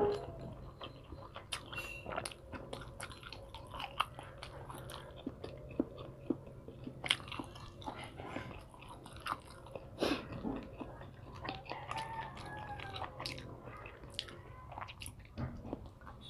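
Close-up chewing and mouth smacking of someone eating fried fish balls dipped in vinegar, with many small irregular clicks.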